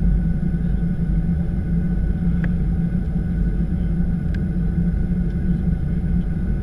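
Steady low rumble inside the cabin of a Boeing 737-700 taxiing on the ground, its CFM56 engines at low taxi power, with a couple of faint ticks in the middle.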